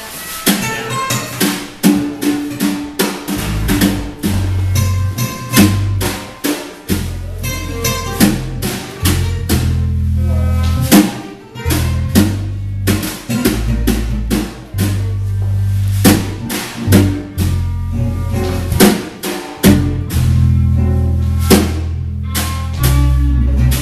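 Live jazz band playing a dance number, led by a drum kit with snare, rimshot and bass drum hits; a bass line comes in about four seconds in.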